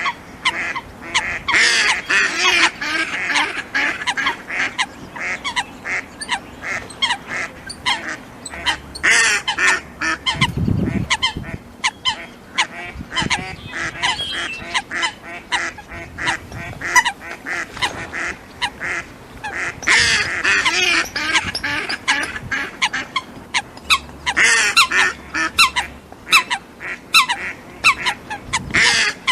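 Ducks calling, a female mallard among them: many short quacks all through, with a few runs of rapid, loud calling.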